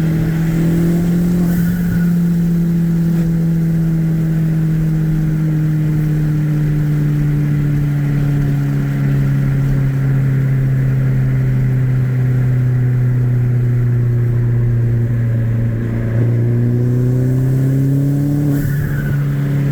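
Turbocharged four-cylinder engine of a modified Mini Cooper R56 with a big K04 turbo and custom exhaust, running under way with an engine note that sinks slowly for most of the clip, climbs again near the end, then drops. Short high turbo flutter chirps come about a second and a half in and near the end as the throttle is lifted.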